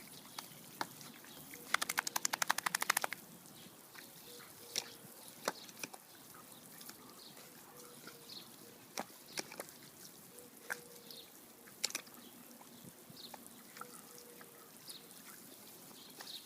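Water sprinkler spraying with a faint hiss. About two seconds in comes a quick run of rapid, even ticks, and single sharp clicks follow here and there.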